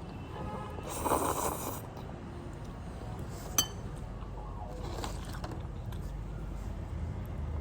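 A breathy huff of air through the nose or mouth about a second in, then a single sharp clink, like a utensil tapping a bowl, about halfway through.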